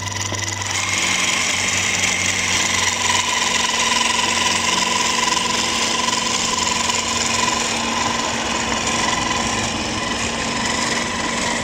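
Hydraulic drive of a radio-controlled CAT 5110 model excavator whining steadily as the upper structure swings round.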